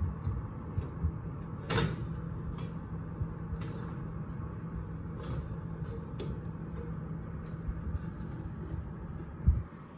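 Metal muffin tray clinking and scraping on the wire oven rack as it is slid out of the open oven, with many small clicks and a louder knock about two seconds in, over a low steady hum. A thump near the end, after which the hum drops away.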